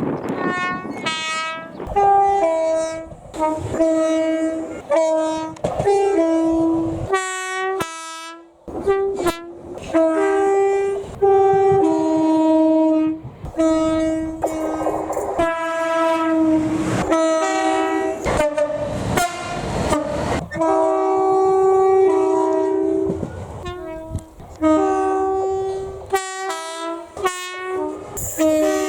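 UK train horns sounding in many short two-tone blasts, the high and low notes alternating, with a few longer held notes.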